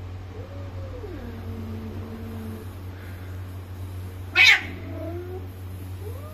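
Bengal cats caterwauling at mating time: a long drawn-out yowl that rises, falls and is held low, then about four and a half seconds in a loud, short, harsh cry followed by a shorter yowl, and another yowl starting near the end.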